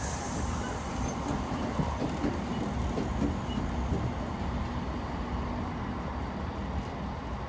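Freight train of empty flat wagons rolling past at low speed: a steady noise of wheels on the rails with a few faint clicks.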